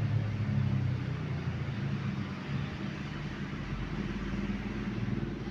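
A low engine rumble over a steady hiss.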